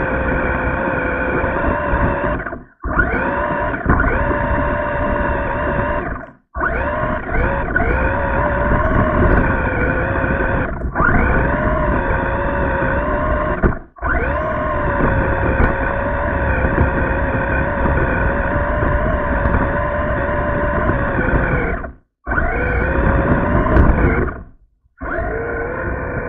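Radio-controlled car's motor and drivetrain running with a steady, distorted whine, recorded from on board the car. It cuts out briefly five times, each time for under a second.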